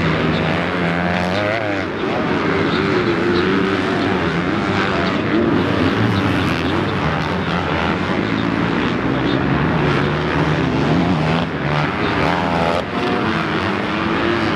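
Several motocross dirt bike engines revving up and down together as riders go around the track. One nearer bike's whine wavers up and down about a second in and again near the end.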